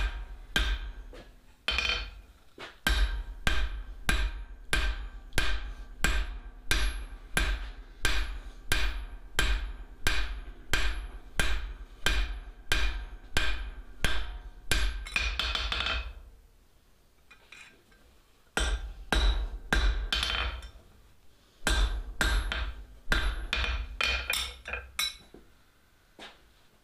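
Hand hammer striking hot steel bar on an anvil, about two blows a second, each blow ringing, flattening the end of the bar into the bowl of a flux spoon. The blows stop about 16 s in, start again for two short runs, and stop near the end.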